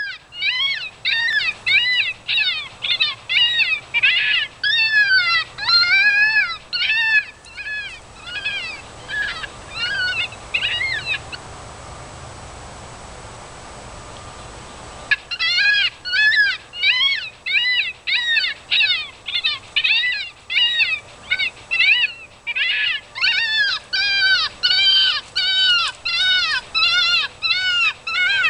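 FoxPro electronic predator call playing a fox kit distress sound: high, arching yelps repeated about twice a second. The yelps stop for about four seconds in the middle, then start up again.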